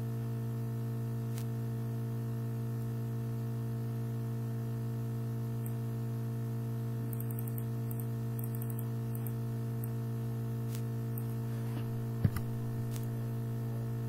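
Steady electrical mains hum on the recording, with a few faint clicks and one sharper click about twelve seconds in.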